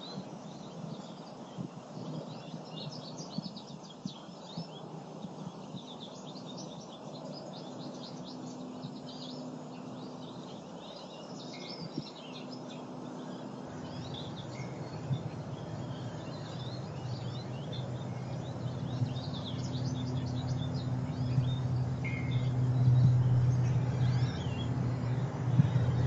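Small songbirds chirping and calling, many short high notes throughout. From about halfway a low vehicle rumble builds and grows louder toward the end.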